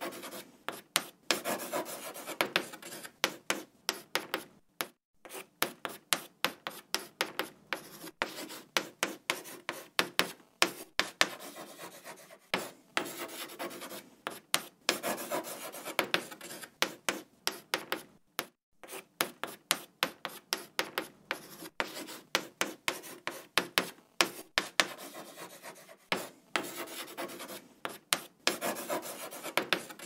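Chalk writing on a board: a rapid, irregular run of short scratchy strokes, with two brief pauses.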